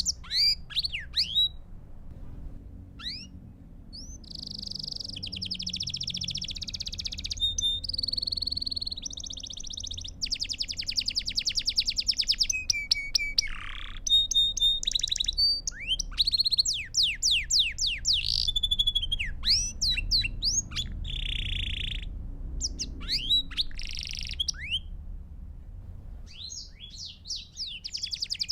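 Belgian canary singing a long, continuous song of fast trills and rolls, each held a second or two before switching to the next, mixed with rising and falling chirps, with a short pause about two seconds in and another near the end.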